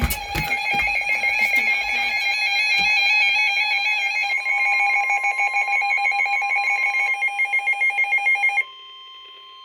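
Emergency alert tones for a severe thunderstorm warning. A loud, rapidly pulsing electronic alarm with two warbling tones sounds for about eight and a half seconds, with a few clicks at its start. It then drops to a quieter steady single tone, the weather-radio warning tone.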